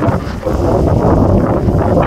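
Loud wind buffeting the microphone over the rush of churning sea water thrown up between a pilot boat and a cruise ship's hull.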